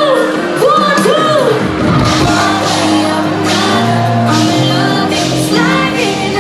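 Loud pop music with a sung vocal; a bass line and a beat come in about two seconds in.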